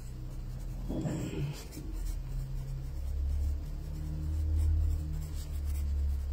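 Pencil writing on a small spiral notepad on a wooden table, with a steady low rumble underneath through the middle of the stretch.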